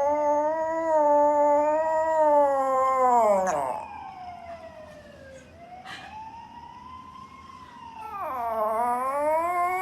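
A dog howling: one long held howl that sinks and fades about three and a half seconds in, a quieter gliding tone, then another howl swelling in near the end.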